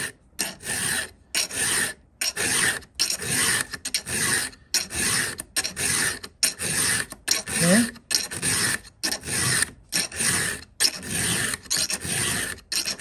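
Round chainsaw file rasping through a steel chain cutter tooth in steady hand strokes, a little more than one a second, each stroke a scraping rasp with a short silent gap between. It is dressing a dull, ragged cutting edge back to a sharp one.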